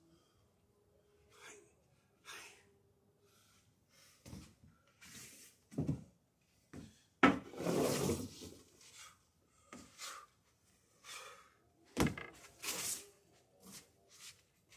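A long staff being swung and spun in a Shaolin staff form: irregular swishes, scuffs and knocks, with feet stepping on a wooden deck. The loudest moments are a longer rushing sound about seven seconds in and a sharp knock about twelve seconds in.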